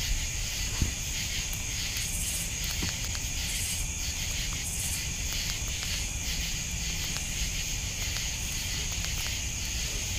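Night insects, crickets, trilling in a steady high-pitched drone, with a few brief louder chirps a couple of seconds in. A single sharp click sounds about a second in.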